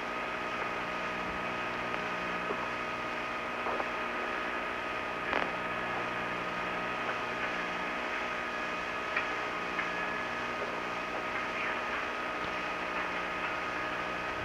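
Steady hum and hiss of the Skylab cabin's fans and equipment, with a few fixed whining tones, a low hum that cuts in and out every second or two, and a few faint clicks.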